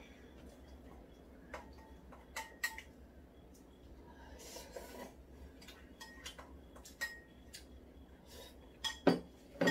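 Eating utensils clinking against a ceramic bowl while a meal is eaten: a few scattered light clinks, with louder ones near the end.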